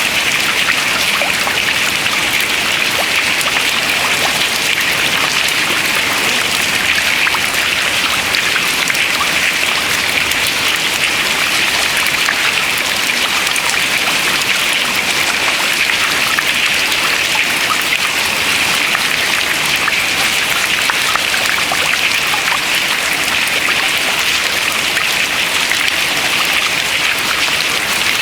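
Dense, steady dripping of meltwater from ice into water, many small drops at once with no break.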